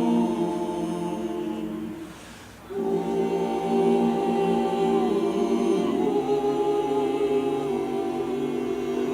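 A choir singing long held chords, breaking off briefly about two seconds in and coming back in on a new chord.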